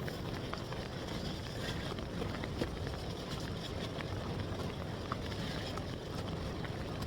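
Steady wash of ocean surf on a beach with a low rumble underneath, and scattered light clicks and taps.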